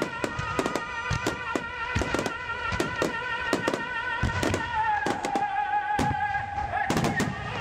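Fireworks shells bursting in quick, irregular succession, many sharp bangs, over music with long held notes. The held notes drop in pitch about five seconds in.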